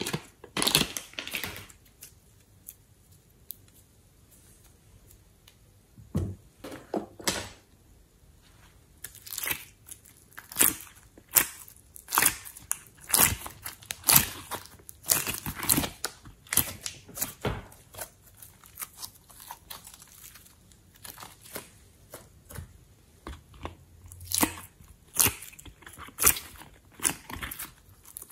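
Hands squeezing and pressing soft clay and slime: irregular sticky clicks and crackles. They are sparse for the first few seconds, then come thick and fast.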